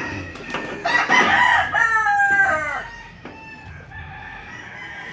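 A rooster crowing once, about a second in, for roughly two seconds, the call falling in pitch at its end. Later comes a faint click of tin snips cutting sheet-metal gutter.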